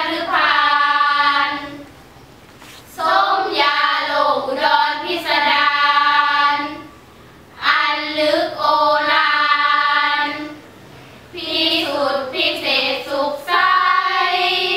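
Five girls chanting Thai Buddhist sarabhanya verse in unison, unaccompanied. The melodic chant moves in drawn-out phrases of held, sliding notes, with a short breath pause between each. About four phrases are heard.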